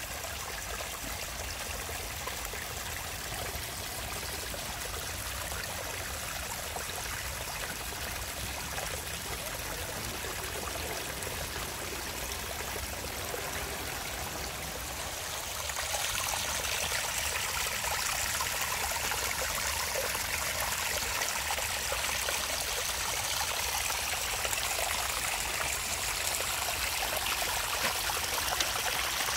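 Small forest creek splashing and trickling over a low rock step, a steady rush of water. About halfway through it grows louder and brighter.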